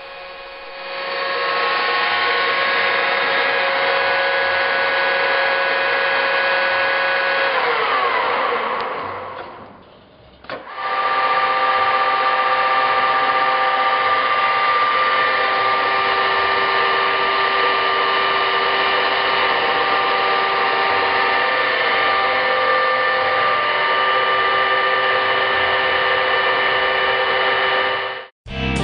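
Clark 1440 engine lathe running with a steady whine, then slowing with falling pitch and coasting to a stop about a third of the way through. It starts again moments later at a different speed and runs steadily until it cuts off just before the end.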